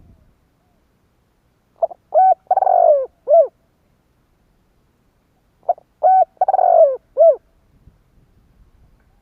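Spotted dove cooing: two phrases about four seconds apart, each a short note, two short arched coos, a longer drawn-out coo and a last short coo.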